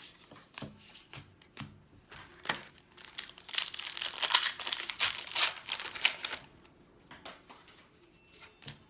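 Baseball trading cards and their foil pack wrapper being handled: scattered light flicks and clicks, with a stretch of crinkling in the middle lasting about three seconds.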